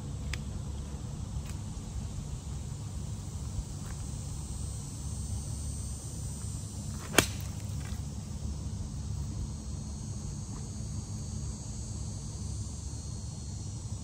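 A golf iron (an 8 or 9 iron) striking a golf ball once, a single crisp click about seven seconds in, over a steady low rumble.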